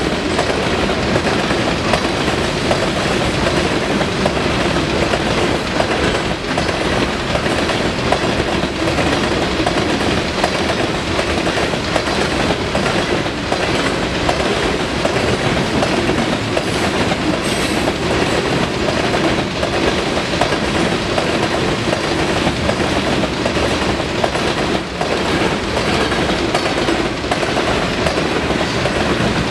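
Loaded covered hopper cars of a sand train rolling past at speed: a steady rumble of steel wheels on rail, with the clickety-clack of wheels passing over rail joints.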